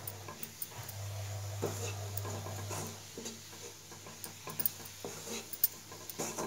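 Wooden spatula stirring crumbly white sorghum puttu in a perforated steel vessel: soft scrapes and light taps of wood on metal. A low steady hum underneath stops about three seconds in.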